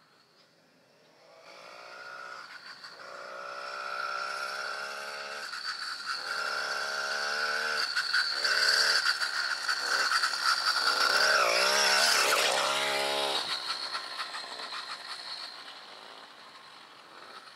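Small 80cc gas engine on a motorized vintage Schwinn bicycle running as it approaches and passes close by. It grows louder over several seconds, drops in pitch as it goes past about two-thirds of the way through, then fades away.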